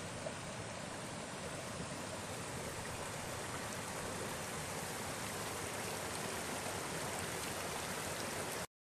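Steady rushing of a stream, an even wash of running water that cuts off suddenly near the end.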